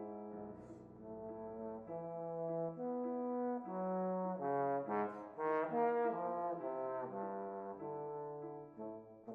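Bass trombone playing a melodic line of held notes that moves into quicker, sharply attacked notes around the middle, with piano accompaniment.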